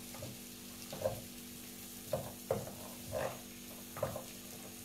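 A wooden spatula stirs ginger-garlic paste and whole spices frying gently in oil in a metal pan, scraping and knocking against the pan about five times over a steady low hum.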